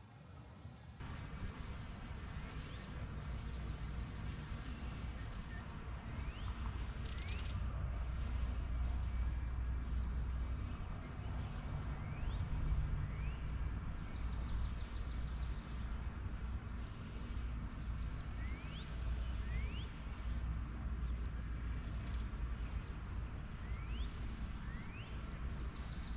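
Wild birds calling outdoors: short, upward-sweeping whistled calls repeated every second or two, over a steady low rumble.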